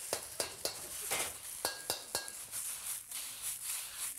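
Metal wok spatula clanking and scraping against a wok as marinated chicken is stir-fried in hot oil, in quick irregular strokes, a few with a brief metallic ring, over a faint sizzle.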